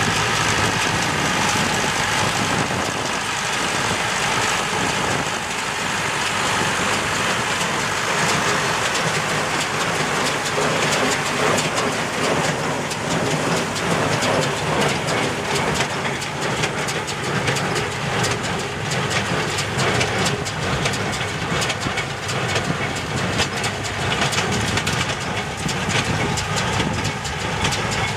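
Tractor engine running while it pulls a small square baler through rice straw, with the baler's pickup and plunger clattering in a dense run of clicks and rattles as it packs the straw into bales.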